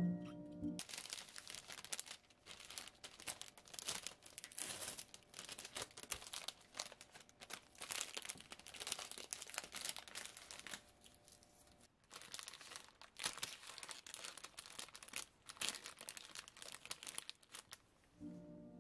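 Dry crackling and crinkling in irregular bursts, with a quieter pause about eleven to twelve seconds in and another near the end.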